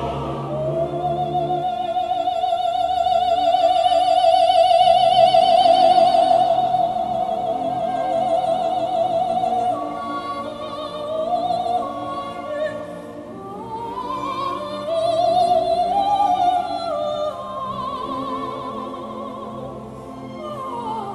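Operatic solo singing with strong vibrato, long held notes and a rising phrase in the middle, over sustained instrumental accompaniment.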